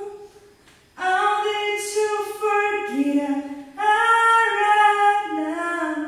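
A woman singing long held notes that step up and down in pitch, with little or no accompaniment, starting about a second in.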